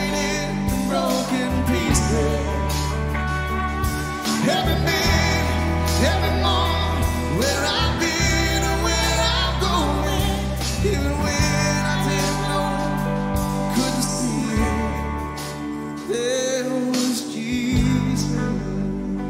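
Music: a worship band playing a slow song, with singing over held bass notes and a steady drum beat.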